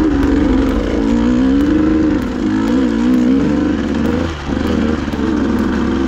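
Dirt bike engine running under riding load, its pitch rising and falling as the throttle is worked, with a brief drop about four seconds in.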